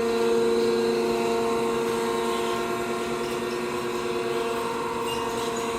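Air Systems TA-3 Twin Air breathing air compressor running, a steady mechanical hum with a constant pitch while it builds pressure.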